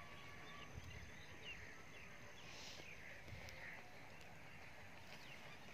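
Faint rural outdoor ambience with scattered distant bird chirps.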